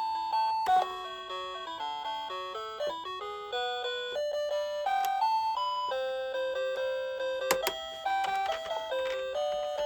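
Background music: a gentle melody of bell-like notes, with a few sharp clicks, the loudest about seven and a half seconds in.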